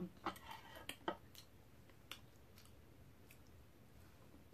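Quiet eating sounds: a cluster of light clicks and taps from a metal spoon and chopsticks against glass bowls, mixed with soft chewing, in the first second or so. After that come only a few faint, scattered ticks.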